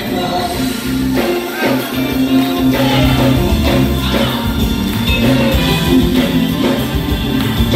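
Gospel music: a young vocal group singing into microphones over instrumental accompaniment with a steady beat. A heavy bass line comes in about three seconds in.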